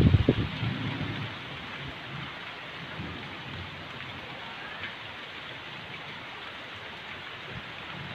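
Steady rain falling on trees and the yard. A loud low rumble comes in the first second, then eases back into the even hiss of the rain.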